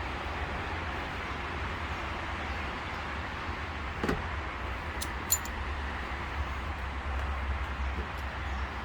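A few light clicks and taps of small trimmer carburetor parts and fuel-line fittings being handled, about four and five seconds in, over a steady low rumble and hiss in the background.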